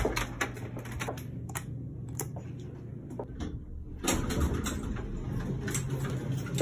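Metal clicks and knocks from a hotel room door's swing-bar latch being handled. About four seconds in, this gives way to the steady low hum of an elevator car, with light ticks and rattles.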